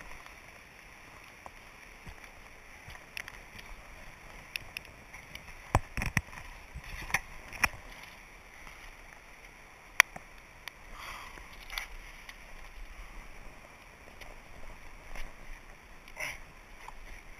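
Scattered handling noises while measuring a caught fish: a few heavy thumps about six seconds in, a sharp click about ten seconds in, and brief rustles, over faint steady outdoor background noise.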